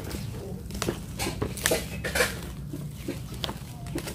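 Plastic parcel wrapping and packing tape crinkling and tearing as a parcel is pulled open, in irregular crackly bursts.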